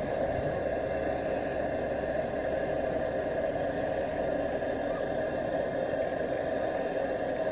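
Blowtorch burning with a steady roar as it preheats the glow head of a Lanz Bulldog hot-bulb engine before starting.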